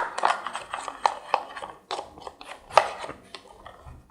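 A utensil stirring a thick glue-based slime mixture in a container, with irregular clicks and scrapes against its sides.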